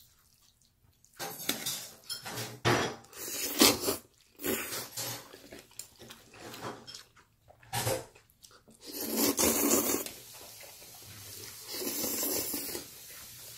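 A metal fork clinking and scraping against a ceramic bowl while noodles are twirled and lifted, with two slurps of noodles, about nine seconds in and again near the end.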